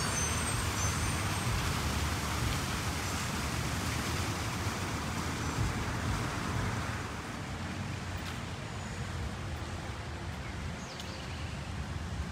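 Steady outdoor rushing noise with a low rumble underneath, easing off a little about halfway through.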